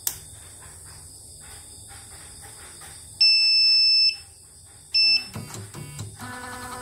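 CNY portable embroidery machine beeping: a loud electronic beep lasting about a second, then a second short beep, followed by clicks and, near the end, the steady whine of its frame-drive motor starting to move the carriage. The technician finds the frame motor shorted, making the frame run erratically.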